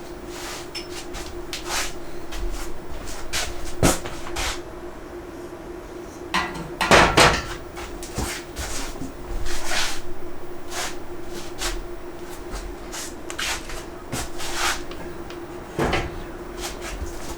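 Parts of a shelving-style battery rack being handled and fitted into place: a run of irregular knocks and clatters, loudest about seven seconds in, over a steady hum.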